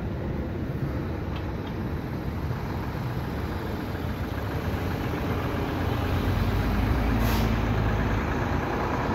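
Road traffic driving over a railroad level crossing: a steady low rumble of car engines and tyres that grows louder about six seconds in as a car passes close, with a short hiss about seven seconds in.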